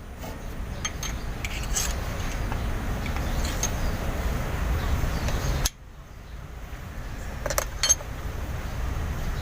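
A few light metallic clicks and clinks of hand tools working on the valve gear of an Isuzu 12PE diesel engine during a valve-clearance adjustment, over a steady low background rumble that dips abruptly about six seconds in.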